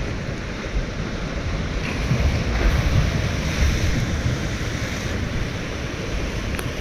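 Ocean surf breaking and washing in, with wind rumbling on the microphone; the wash swells a little louder about two seconds in.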